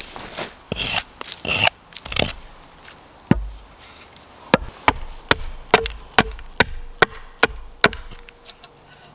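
Axe chopping wood: a few scattered blows, then a quick, even run of about nine strikes at roughly two to three a second in the second half.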